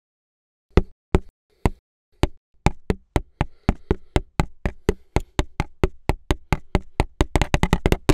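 A knife point stabbing a tabletop between the fingers of a spread gloved hand, the knife game: sharp single knocks that start slow and speed up steadily into a rapid rattle.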